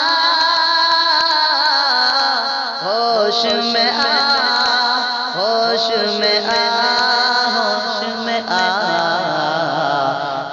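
A naat sung in Urdu: long, drawn-out melodic vocal phrases with several vocal lines layered over one another.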